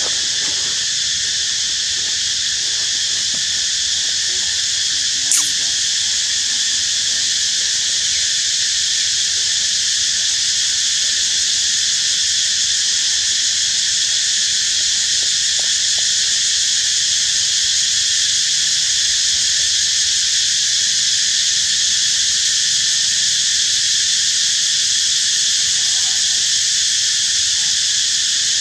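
Steady, high-pitched insect chorus droning without a break, with a single sharp click about five seconds in.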